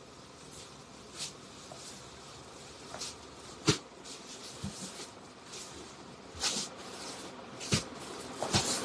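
Quiet room noise broken by several scattered short clicks and knocks, the strongest about a third of the way in.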